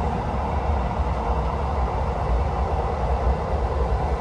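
Steady low rumble of a train running at speed, heard from inside a stainless-steel passenger coach as it passes through a tunnel.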